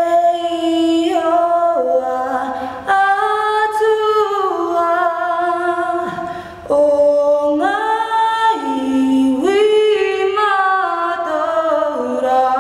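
A young woman singing the national anthem a cappella in a strong solo voice, holding long notes with vibrato and pausing briefly for breath about six seconds in.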